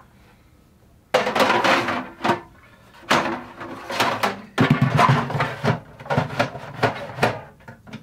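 A clear plastic refrigerator crisper drawer being handled and slid into the bottom of the fridge compartment. It makes a run of hollow plastic clatters and knocks, starting about a second in and ending near the end.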